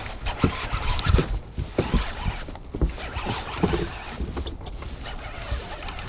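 Baitcasting reel being cranked against a hooked musky, with irregular knocks of rod and boots on the boat deck and wind rushing on the microphone.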